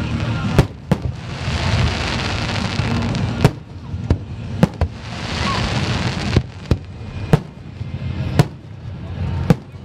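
Aerial fireworks shells bursting overhead: about a dozen sharp bangs at irregular intervals, with a hissing, crackling spray between them as the stars burn out.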